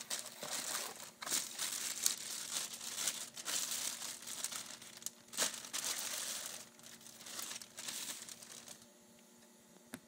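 Clear plastic packaging crinkling and a cardboard box rustling as a part is unpacked, in irregular bursts that die down about nine seconds in.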